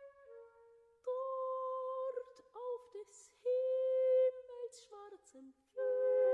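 Soprano reciting in Sprechstimme: half-sung held notes that slide in pitch, with hissed consonants, accompanied by a solo flute.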